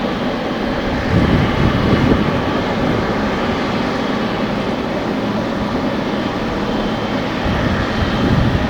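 Jet airliner engines running with a steady rumble and a faint high whine, mixed with strong wind gusting on the microphone.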